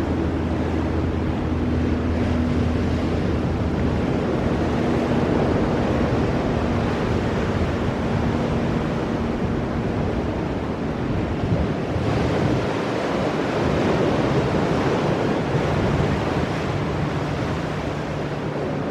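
Ocean surf washing against rocks: a continuous rush of breaking waves.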